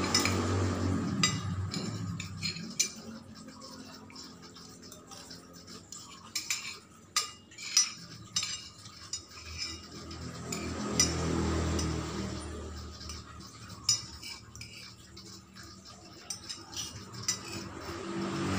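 Metal spoons and forks clinking and scraping on a ceramic plate while eating, in irregular short clicks. A low hum swells and fades around the middle.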